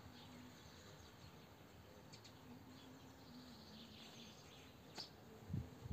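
Quiet outdoor ambience with faint, scattered bird chirps. A sharp click comes about five seconds in, and low rumbling noise rises just before the end.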